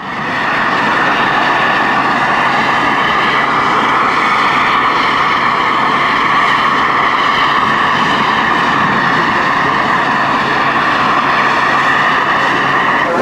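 Steady mechanical noise with a constant high whine from the steam ship Shieldhall's machinery while she lies alongside with steam up. It fades in at the start and holds unchanged.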